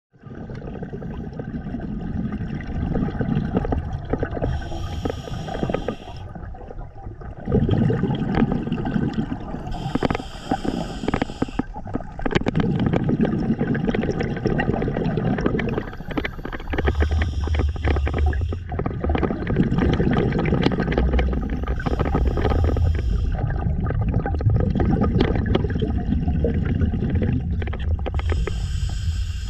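Scuba diver breathing through an open-circuit regulator underwater: a short hiss on each inhale, about every five to six seconds, with a long gurgling rush of exhaled bubbles in between.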